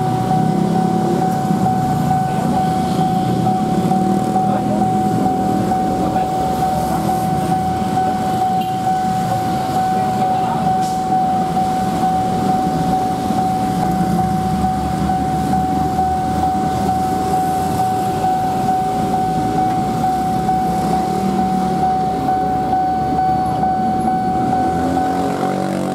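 Railway level-crossing warning alarm sounding one unbroken high tone, over the rumble of cars and motorcycles idling at the closed barrier.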